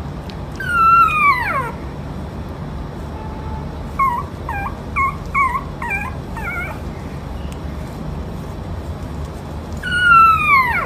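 A dog whining: two long high whines that fall steeply in pitch, one about half a second in and one near the end, with a quick run of about seven short yips a few seconds in.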